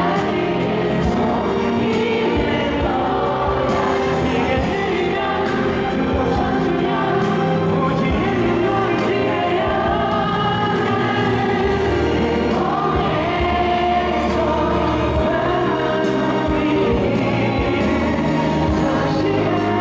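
Live concert music: a pop ballad sung over band accompaniment, with many voices singing together in a choir-like sound.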